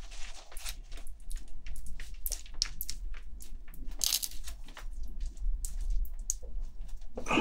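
Soft rustling and small clicks of a damp tissue being rubbed around a newborn kitten's mouth to wipe off milk, with a louder patch of rustling about four seconds in.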